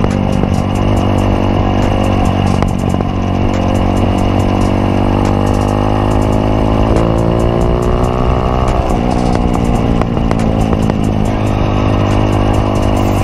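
Motorstar Z200S motorcycle engine running while the bike is ridden, heard from near the rear shock and tail, with road and wind noise. The engine note climbs steadily for several seconds, then drops sharply about nine seconds in before settling again.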